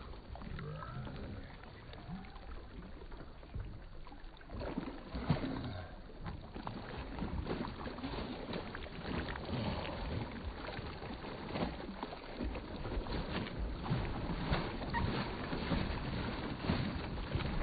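Water splashing as a small child swimming kicks his feet at the surface. The splashes are irregular, sparse for the first few seconds, then come steadily.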